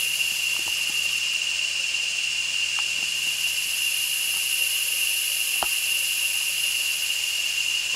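Steady chorus of insects in tropical forest, a continuous high-pitched buzz that does not change. A faint click sounds once about five and a half seconds in.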